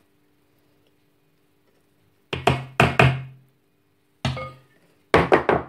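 Hard knocks on a wooden kitchen board in quick runs: four a little over two seconds in, one just past four seconds, and three more near the end, each dying away quickly.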